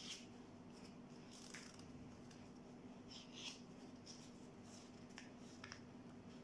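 Faint, scattered crinkles and rustles of origami paper being folded and creased by hand, over a steady low hum.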